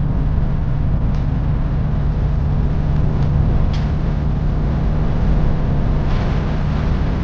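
Steady low drone of a semi-truck's diesel engine and road noise while driving, with a few faint ticks.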